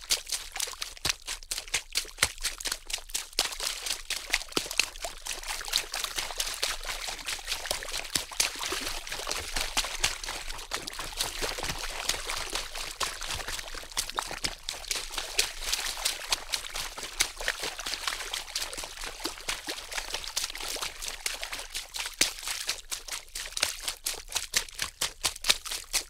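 Water splashing and sloshing in a quick, uneven run of small splashes and trickles. It is busiest through the middle and breaks into more separate splashes near the start and end.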